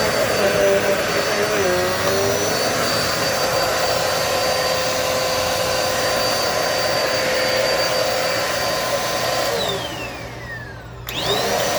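Dirt Devil Multi-Surface vacuum cleaner running with a steady motor whine, then switched off about nine and a half seconds in, its motor winding down in pitch. Near the end it is briefly switched on again and winds down once more.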